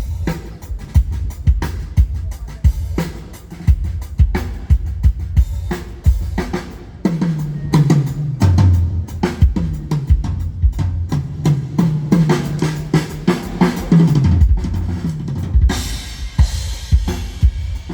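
Drum kit playing a steady groove with kick and snare during a band sound check. Low bass notes join about seven seconds in and stop near fifteen seconds, and cymbals wash in near the end.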